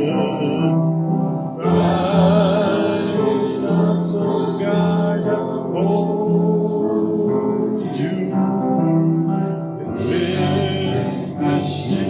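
Gospel-style worship music: singing over sustained instrumental chords, with the voices swelling twice.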